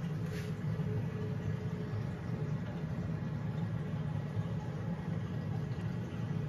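Steady low hum with a faint hiss from a reef aquarium's pumps and water circulation.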